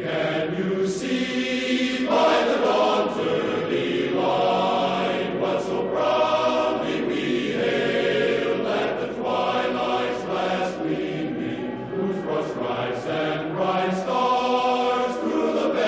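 Choral music: many voices singing long held chords that change every two seconds or so.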